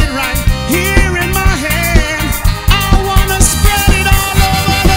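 Band music with a steady upbeat beat and melodic lines over drums.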